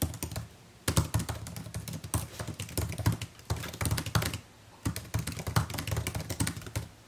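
Fast typing on a MacBook Pro laptop keyboard: steady runs of quick key clicks, pausing briefly just under a second in and again a little past four seconds.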